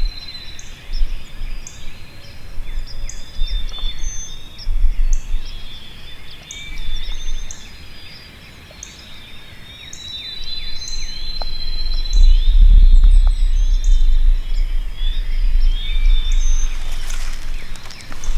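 Several songbirds chirping and singing, with one long, even trill heard twice, over a low, uneven rumble on the microphone that grows loudest in the second half.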